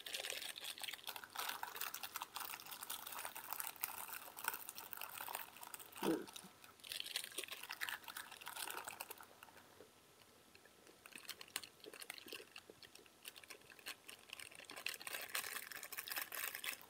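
Thin plastic wrapper crinkling and crackling as it is handled and squeezed in the hands, with a lull a little past the middle.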